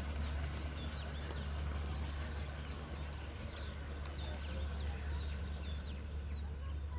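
Birds chirping, a quick run of short high calls several times a second, over a steady low rumble.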